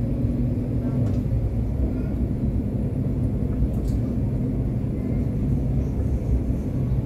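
Steady low rumble of a tram running at speed, heard from inside the car.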